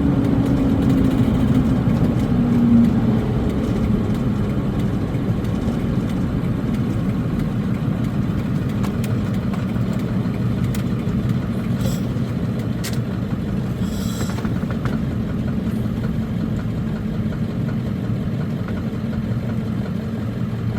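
Ford E350 van's 7.3 Powerstroke diesel engine running while driving, heard from inside the cab. The engine note falls in pitch over the first few seconds as the van slows, then settles into a steady drone with road noise, with a few brief clicks around the middle.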